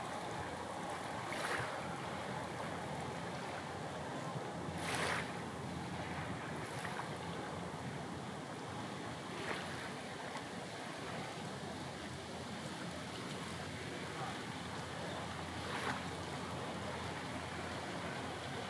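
Steady rush of sea and wind, with small waves splashing a few times, the loudest about five seconds in.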